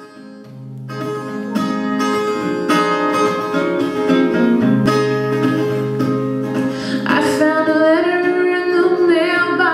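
Acoustic guitar strummed as a song's introduction, coming in from near quiet about a second in; a singing voice joins about seven seconds in.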